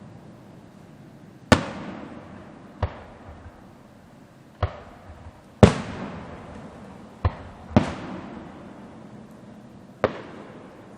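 Aerial fireworks shells bursting: seven sharp booms, unevenly spaced, each trailing off in a fading rumble.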